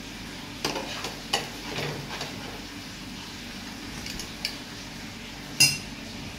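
Metal spatula scraping and clinking on a tawa as a cooked aloo paratha is lifted onto a plate. There are a few short sharp clinks, the loudest near the end, over a faint steady hiss.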